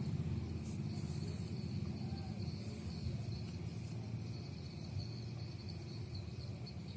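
Crickets trilling steadily over a low background hum.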